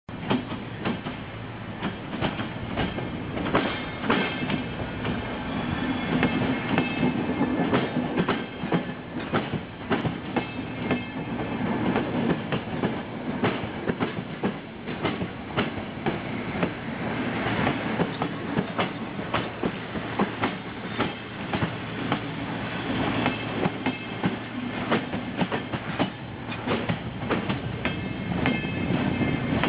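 Passenger coaches rolling slowly past, their wheels clicking irregularly over rail joints, pushed by an SM42 diesel shunting locomotive whose engine gives a steady low hum underneath.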